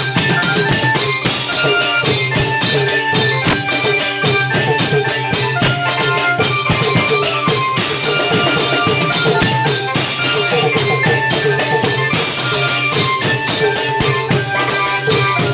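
Thai klong yao long-drum ensemble playing: a dense, fast rhythm of drums and cymbals, with short pitched notes sounding over the beat.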